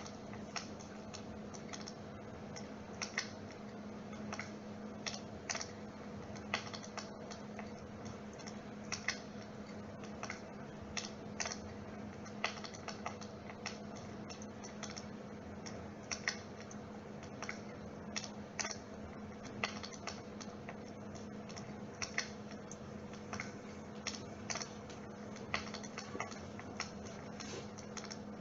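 Dimplex flame-effect humidifier running with a steady hum, under irregular sharp crackling clicks, one to three a second.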